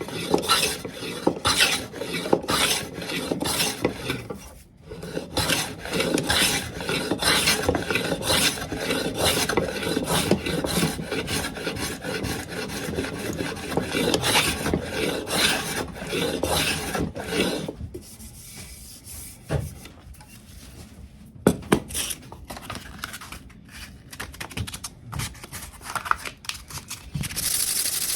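Wood being smoothed by hand with quick rubbing strokes, about two a second, working the glued-in hardwood repair on a table leg flush. The strokes stop about two-thirds through, leaving a few light knocks, and a steady hiss begins just before the end.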